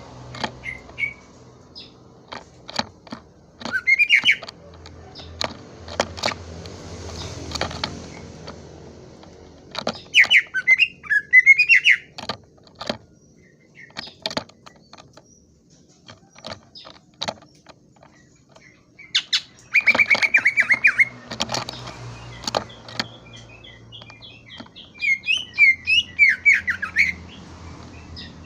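A cucak ijo (green leafbird) singing in bursts of fast, chattering, rapidly varied notes, four bursts with sharp clicks and short calls in between.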